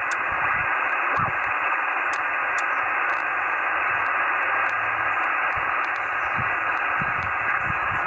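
HF amateur radio transceiver's speaker giving out steady band noise: an even hiss of static, cut off above about 3 kHz, as the band is received on the antenna.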